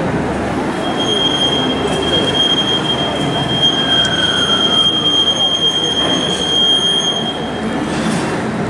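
Metal-cutting lathes running in a large workshop, with one steady high-pitched squeal starting about a second in and stopping near the end.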